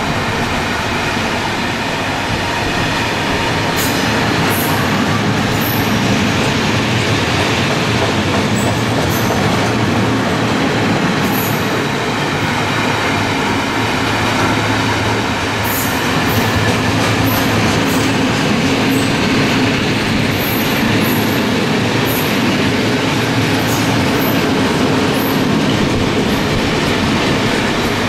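Freight train of four-axle Eaos open coal wagons rolling past at close range: a steady rumble and rattle of wheels and wagon bodies on the track, with brief high-pitched wheel squeals here and there, more of them in the second half.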